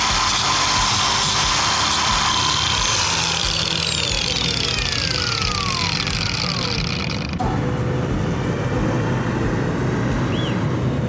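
Cordless Makita angle grinder with a cut-off disc running with a steady whine, then switched off and winding down, its pitch falling over several seconds. About seven seconds in it gives way abruptly to a quieter steady hum.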